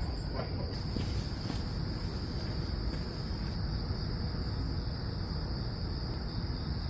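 Insects chirring steadily at one high pitch, unbroken, with a low rumble underneath.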